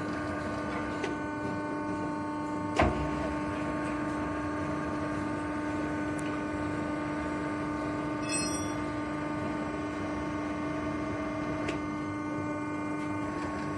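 Steady hum of a powered hydraulic press brake idling, with one sharp click about three seconds in.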